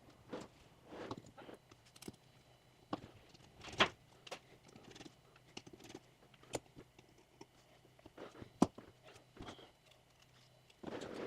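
Irregular small clicks, taps and short scrapes of hand tools working inside an opened iPhone 7 Plus around its battery, with the sharpest click about 8.5 seconds in.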